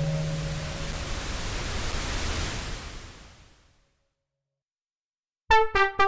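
Elka-X software synthesizer (a Synthex emulation) on a sync bass patch: a held low note fades under a hissing noise that brightens and then dies away about four seconds in. After a pause of about a second and a half, short, bright chord stabs from the next patch begin near the end.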